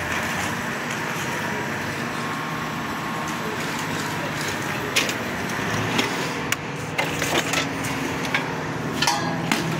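Engine of a heavy machine running steadily, with sharp knocks and clanks from about halfway through.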